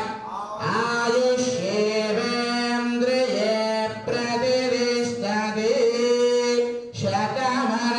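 A man singing into a hand microphone in long, drawn-out melodic phrases, with short breaks about half a second, four seconds and seven seconds in.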